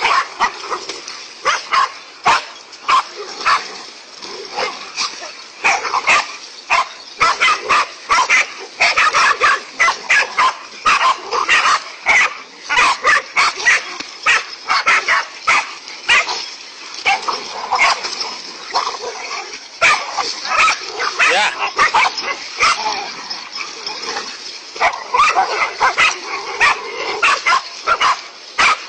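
Dog barking and yelping over and over, short barks coming in quick, irregular succession, as it goes after a snake.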